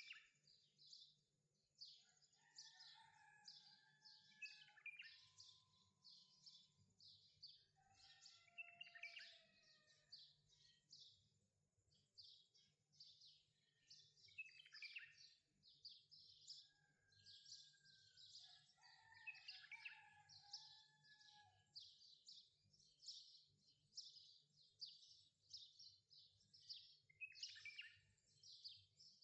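Faint birdsong: rapid high chirping throughout, with a few lower whistled calls that glide in pitch, over a faint steady low hum.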